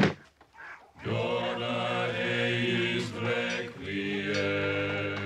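Male voices chanting a slow Latin requiem in unison, broken by sharp wooden smacks of boards struck against the chanters' heads. There is a loud smack at the start, then a fainter one about three seconds in.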